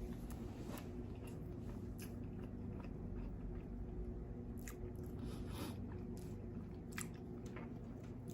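Close-miked chewing of fast food, with short wet mouth clicks and smacks about once a second over a steady low hum.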